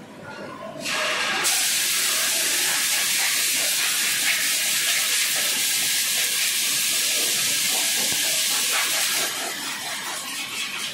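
Pressurised gas venting with a loud, steady hiss. It starts about a second in, grows stronger half a second later, and cuts off about nine seconds in. Faint machine clatter runs underneath.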